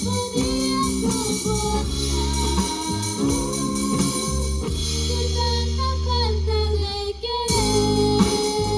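A band song with a sung melody over bass, drums and guitar. Near the end the band thins out for a moment, then comes back in with the cymbals.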